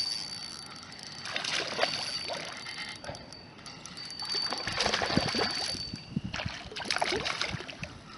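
Fishing reel being cranked in short stretches of one to two seconds, each with a fast run of fine clicks, as a hooked bass is reeled in toward the bank.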